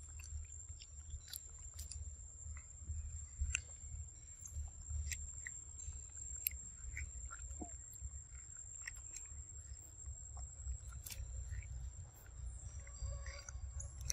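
A macaque chewing and biting into soft, juicy ripe fruit: a string of small, wet mouth clicks and smacks.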